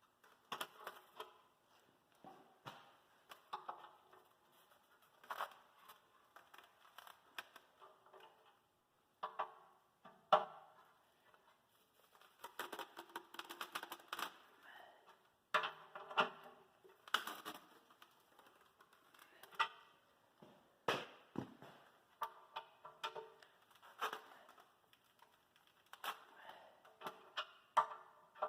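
Irregular clicks and knocks of a wrench and steel tractor rim parts as the rim is assembled and its cam bolts are tightened, a few louder knocks standing out.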